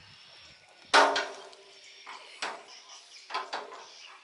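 A sharp metal clank about a second in that rings briefly, then a few lighter knocks and clicks, from work on the hydraulic hose fittings of an excavator's boom cylinder as the oil lines are undone.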